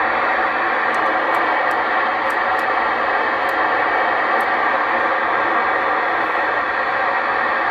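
Steady hiss of static from a Kenwood 2-metre all-mode transceiver's speaker, tuned near the ISS voice downlink, with no voice coming through.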